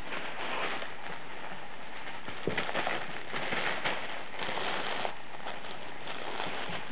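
Crinkle tunnel rustling and crackling in irregular bursts as a kitten scrambles about inside it, with a few sharp crackles about two and a half seconds in.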